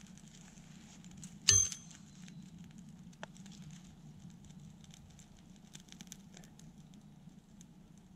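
Small tinder-and-kindling fire just catching, with faint irregular crackles and ticks. One sharp metallic clink rings out about a second and a half in.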